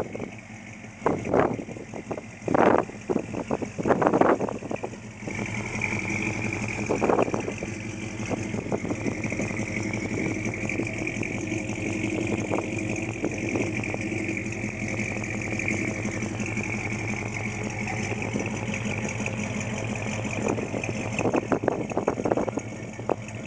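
1969 Plymouth Road Runner's freshly rebuilt 440 V8 idling steadily, an engine not yet broken in. A few short loud bursts come in the first few seconds and again near the end.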